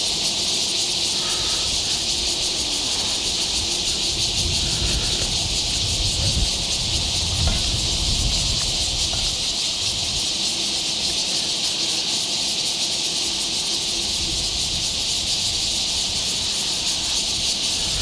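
Steady high-pitched hiss of an insect chorus, unbroken throughout, with a faint low rumble underneath.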